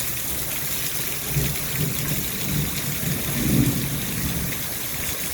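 Heavy thunderstorm rain pouring down in a steady hiss, with a low rumble underneath that swells several times and is loudest a little past halfway.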